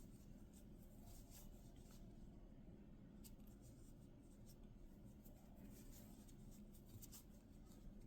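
Faint crochet work: an 8mm crochet hook ticking and yarn rubbing as single crochet increases are worked, over a low steady hum.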